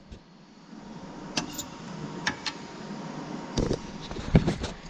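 A handful of separate sharp clicks and knocks from handling the Wood Wizz's carriage as its side-to-side lock is released for sanding, the loudest near the end.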